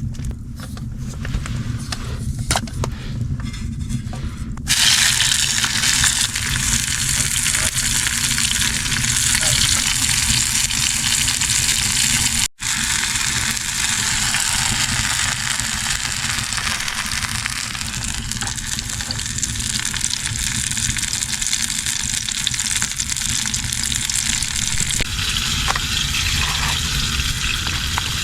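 Food sizzling and frying in a hot pan. The sizzle starts suddenly about five seconds in and then runs steadily, with a brief break about halfway through.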